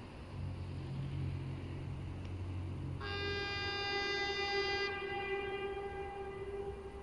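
Air horn of a 060-EA (LE 5100 kW) electric freight locomotive sounding one long steady blast, starting about three seconds in and held to the end. A low steady hum fills the first half.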